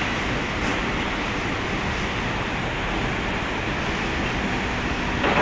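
Steady, even rushing noise of machinery running, with a brief louder sound right at the end.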